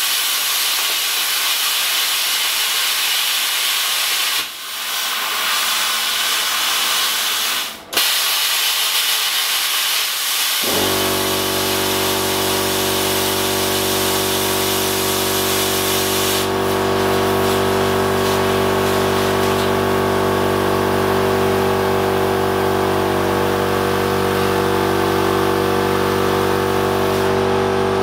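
Plasma cutter hissing steadily as it cuts stainless steel, its arc cutting out briefly twice. About ten seconds in, a motor starts and runs with a steady hum beneath the hiss. The cutting hiss fades out near the end.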